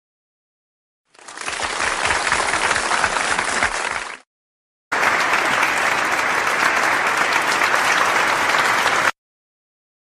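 Applause sound effect in two clips: the first fades in about a second in and runs about three seconds, the second starts abruptly about five seconds in and cuts off about nine seconds in, with dead silence between and after.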